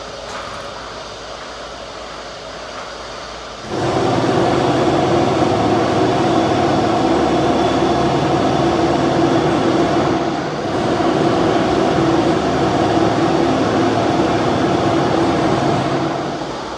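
A loud steady mechanical drone that starts suddenly about four seconds in, dips briefly about ten seconds in, and fades near the end, over a fainter steady background hum.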